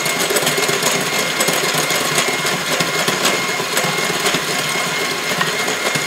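KitchenAid electric hand mixer running steadily, its beaters whipping egg yolks and sugar in a glass bowl, with a thin steady high whine from the motor.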